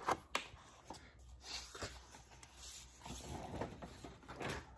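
Paper pages of a picture book being handled and turned: a couple of sharp clicks near the start, then soft, intermittent rustling of paper.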